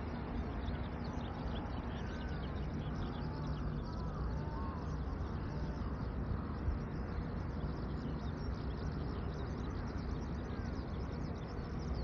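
A flock of crows cawing, many short overlapping calls, over a steady low rumble.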